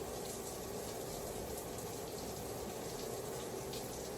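Shower running, a steady spray of water.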